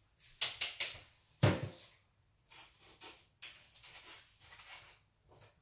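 A few short knocks and clicks, three close together near the start and a heavier knock about a second and a half in, followed by fainter soft sounds.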